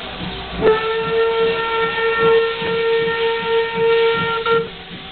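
Steam locomotive whistle blown for departure, one steady tone held about four seconds: it starts just under a second in and cuts off shortly before the end.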